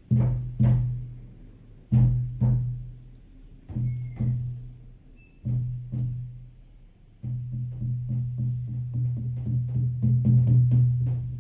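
Shamanic frame drums with a deep boom, struck in paired beats about every two seconds, then, about seven seconds in, breaking into a fast, steady beat.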